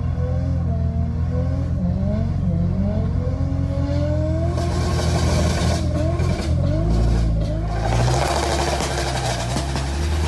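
Toyota 2JZ straight-six engine revving hard on a two-step launch limiter during a burnout, revs swinging up and down. A crackle of pops comes in about halfway, with a rushing noise of spinning tyres that is heaviest near the end.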